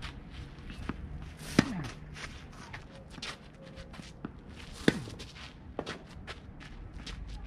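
Tennis balls struck by racket: two sharp pops about three seconds apart, with fainter ball bounces and shoe scuffs on the court between them.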